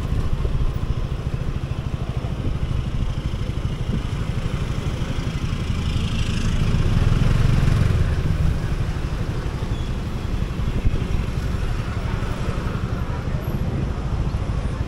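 Motor scooter riding through city traffic: its small engine running under a steady low rumble of wind on the microphone. It swells louder from about six to eight and a half seconds in as traffic closes in alongside.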